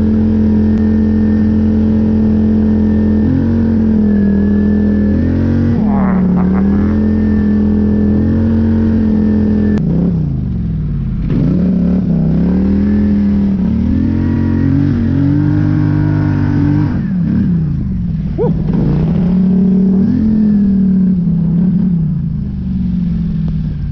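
Polaris Scrambler 850 ATV's parallel-twin engine running under load through deep snow. It holds a steady pitch for about three seconds, then the revs rise and fall repeatedly as the throttle is worked, dropping away twice, about ten and seventeen seconds in.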